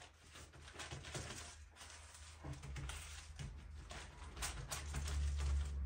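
Gloved hands pressing and stretching soft pide dough on baking paper: irregular soft pats, taps and crinkling of the plastic gloves and paper. A low hum swells in the second half.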